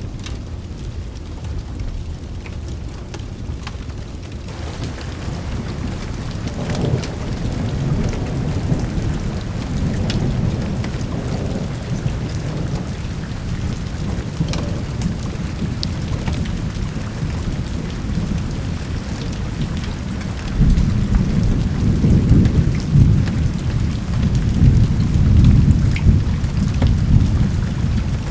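Steady rain with rolling thunder. The rain thickens a few seconds in, and a heavier, louder roll of thunder builds about twenty seconds in.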